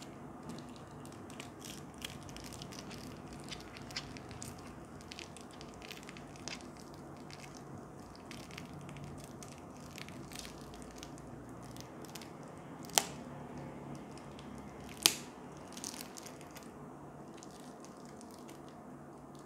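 Plastic packaging and a reflective slap band being handled and unwrapped: soft crinkling and small clicks throughout, with two sharp snaps about two seconds apart past the middle.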